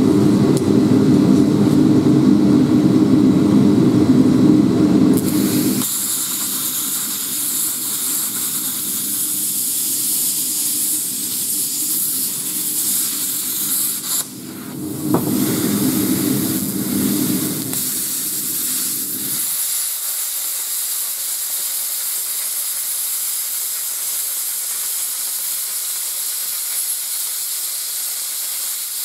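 Plasma cutter cutting steel C-channel: a loud, steady hiss of the arc that starts about five seconds in, cuts out briefly near the middle and restarts, running on to the end. A lower hum, loudest at the start, runs beneath it and stops about two-thirds of the way through.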